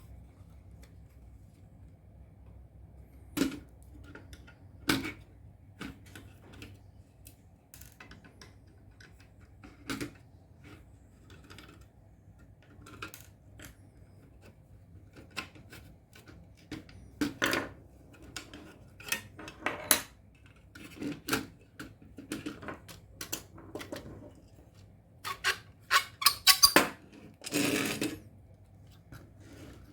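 Small tools and metal parts being handled on a workbench: irregular clicks, taps and light clinks, coming thicker and louder in the second half.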